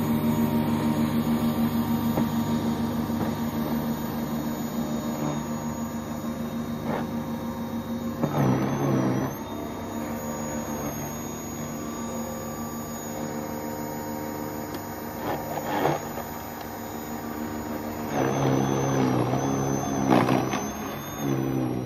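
WORX 40V cordless 20-inch snowblower running: a steady electric-motor and auger hum that grows fainter over the first several seconds, broken by a few louder, rougher spells as it takes in and throws snow, the longest near the end.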